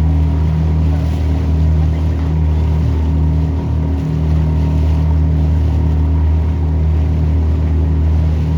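Motorboat engine running at a steady speed, a loud even drone with water and wind noise under it, heard from on board.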